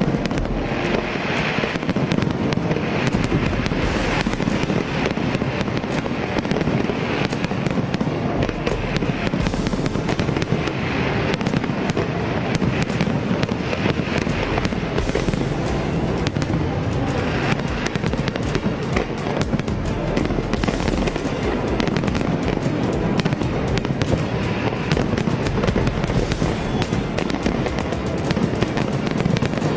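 Large fireworks display: a dense, unbroken crackling of many shells and fountains going off together, with music playing underneath.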